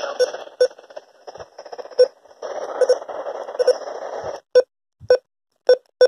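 Midland weather radio hissing with receiver static while its keys are pressed, each press giving a short beep, about ten in all. The static drops out briefly after about a second, comes back, then stops at about four and a half seconds, leaving only the key beeps.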